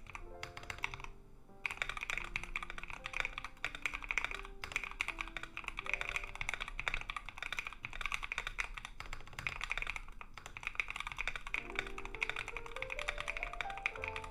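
Typing on a Tofu60 60% mechanical keyboard fitted with lubed Feker Holy Panda clone tactile switches: a rapid, continuous clatter of keystrokes that starts about a second and a half in. Background music plays underneath.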